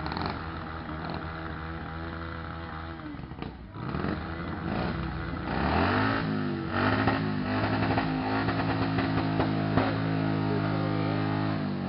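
Motorcycle engine with a straight-through exhaust running at a fast idle, then revved up about five seconds in and held at high revs, louder, before dropping back near the end.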